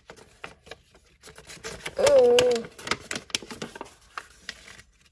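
Packing paper rustling and crinkling, with small clicks and taps, as a large sheet is handled. About two seconds in comes a short hummed voice sound, the loudest thing heard. All sound cuts off abruptly near the end.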